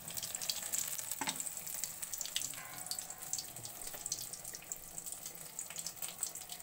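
Brinjal slices in gram-flour and rice-flour batter frying in hot oil, a steady sizzle full of small crackles.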